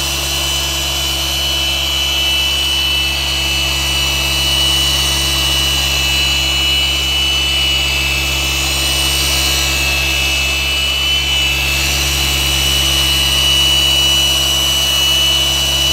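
Rupes LHR 21 long-throw random orbital polisher running steadily with a wool pad and compound on a painted boat hull: a constant motor drone with a steady high whine over it.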